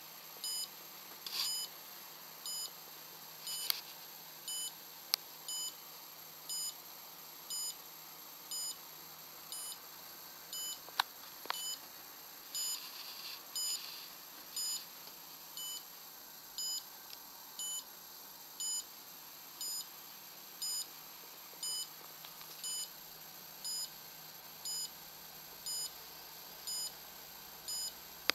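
Buzzer of an Arduino fire-alarm circuit sounding the alarm: short, high-pitched beeps repeating evenly about once a second. A few sharp clicks fall in between.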